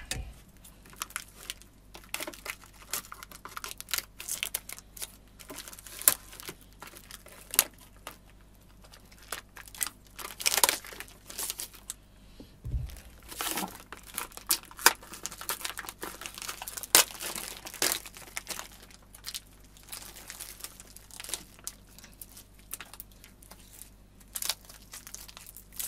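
Plastic packaging crinkling and tearing as a drum rack clamp is worked out of its bag, in irregular crackles with sharp clicks. A single low thump about thirteen seconds in.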